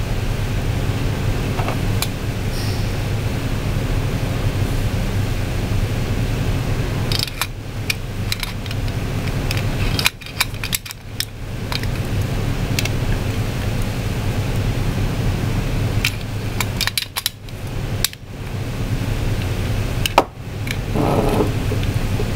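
A steady low mechanical hum runs throughout. Scattered sharp small clicks and taps come from metal lock and tailgate crank parts being handled and fitted together, several of them between about 7 and 11 seconds in and again around 16 to 20 seconds.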